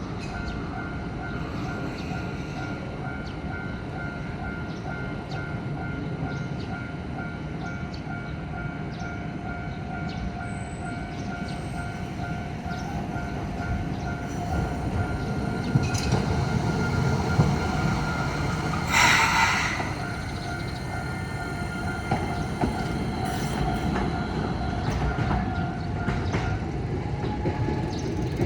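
A level-crossing warning alarm on the Toden Arakawa Line sounds steadily in regular pulses while a tram rumbles over the crossing, clicking over the rail joints. A short hissing burst comes about two-thirds of the way in, and the alarm stops near the end.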